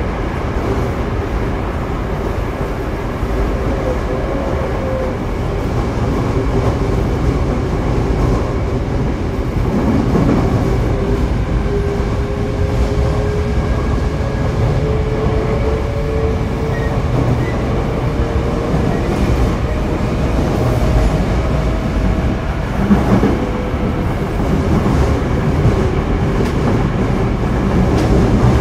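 Toei 5300 series subway train (set 5308F, Mitsubishi GTO-VVVF traction equipment) running between stations, heard from inside the car: a steady rumble of wheels and motors, with a faint tone that rises slowly in pitch through the middle.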